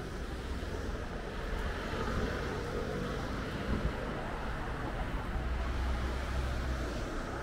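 Road traffic on a city street: a steady hum of passing vehicles, with a low engine rumble swelling about five seconds in.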